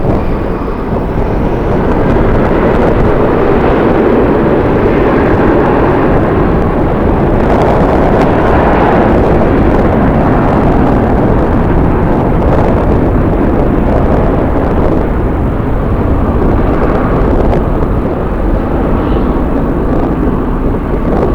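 Jet airliner engines running loud and steady, swelling a little about eight seconds in, with strong wind buffeting the microphone.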